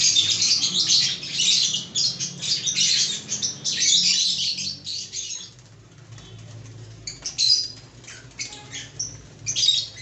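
A flock of caged lovebirds chattering: dense high-pitched chirps and squawks for about the first five seconds, then thinning to scattered calls with short flurries near the end.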